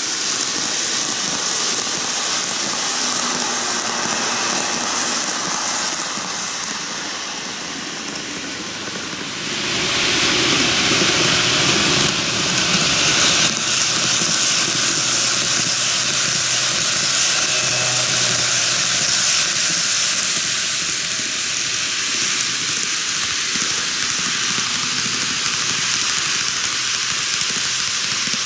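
TOMIX N-gauge model trains, an Odakyu 4000-series and a 50000 VSE Romancecar, running past on curved track: a steady, even running noise of the models on the rails, louder after about ten seconds.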